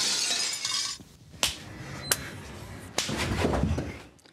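Glass shattering, the crash and scattering shards dying away about a second in; then two sharp clicks and a brief scuffling noise.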